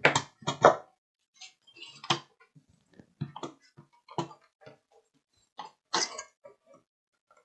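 Irregular clicks, knocks and short scrapes of the sheet-metal shield and bracket of a Chinon FB354 3.5-inch floppy drive being handled and worked loose from its case. The loudest knocks come at the start and about six seconds in.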